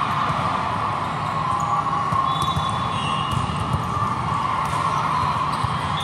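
Steady din of a big hall full of volleyball courts: crowd chatter with volleyballs thudding and bouncing throughout, and a few brief high squeaks.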